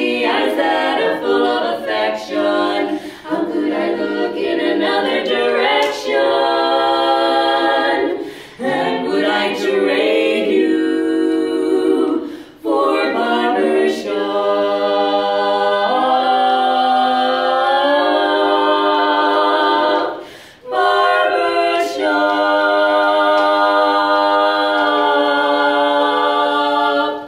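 Women's barbershop quartet singing a cappella in four-part close harmony, phrases broken by a few short pauses. The song ends on a long held final chord of about five seconds that all four voices cut off together.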